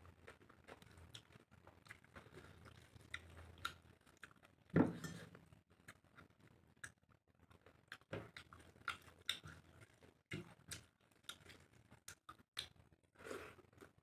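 Close-up chewing and mouth sounds of a person eating rice and prawn curry by hand: many soft wet clicks and smacks, with one louder bump about five seconds in.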